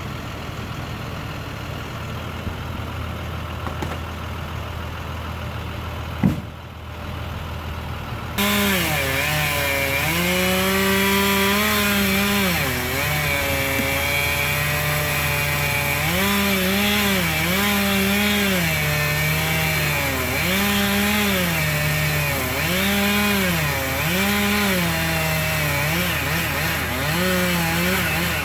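A heavy engine idles steadily, with a single sharp knock. About eight seconds in, a chainsaw starts running loud, its pitch dipping and recovering again and again as it bogs in and out of cuts in maple wood.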